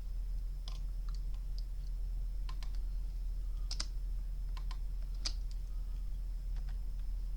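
Computer keyboard keys and mouse buttons clicking irregularly, about fifteen light clicks, during 3D modelling work at the computer. A steady low electrical hum and a faint high whine run underneath.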